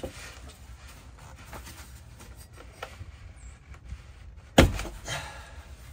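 Factory bump stop of a Sprinter van being worked out of its bracket above the rear axle by a gloved hand: faint scraping and small clicks, then one loud sharp snap about four and a half seconds in as it pops free.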